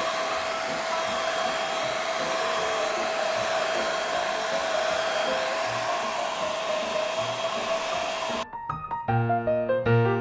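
Handheld hair dryer blowing steadily with a constant whine, cutting off abruptly about eight and a half seconds in. Piano music follows.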